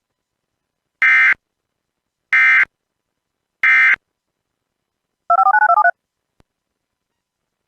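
Emergency Alert System end-of-message data bursts: three short, identical bursts of digital warbling data tones, about a second and a quarter apart, marking the end of the alert. A little after five seconds in, a brief warbling electronic tone alternates quickly between two pitches.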